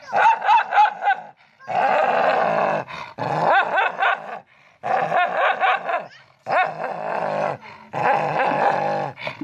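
A dog vocalizing in about six growling, wavering stretches of a second or so each, with short pauses between them.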